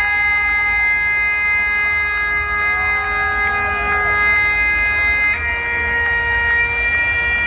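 Live concert sound: long, held droning tones through a festival PA, the notes shifting to a new chord about five seconds in, over crowd noise and low rumble.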